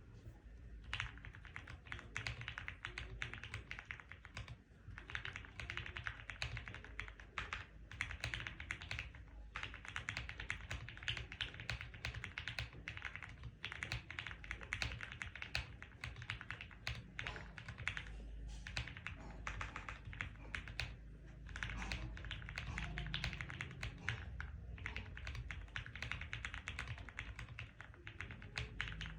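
Custom mechanical keyboard with Krytox-lubed Gateron Yellow linear switches on an FR4 plate and PBT Cherry-profile keycaps, typed on in fast continuous runs of keystrokes broken by short pauses every few seconds.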